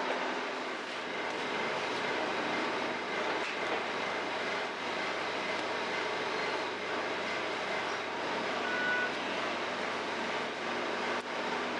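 Steady bakery machinery running: a dense even hiss with faint humming tones underneath, and no distinct knocks or pauses.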